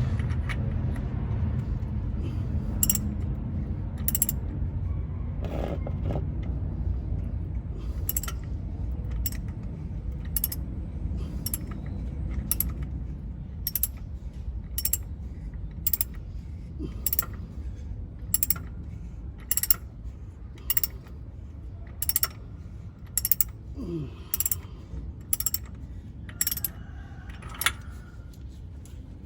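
Ratchet wrench clicking in short strokes, one or two sharp clicks a second, as bolts are worked during an oil change on a Toyota 1ZR-FE engine. A low rumble underneath fades away over the first half.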